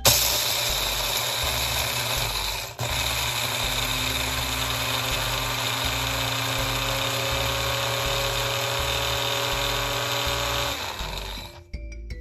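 Small cup-style electric blender running steadily, grinding dry turtle food pellets into powder. It cuts out for an instant about three seconds in, runs on, and stops about a second before the end.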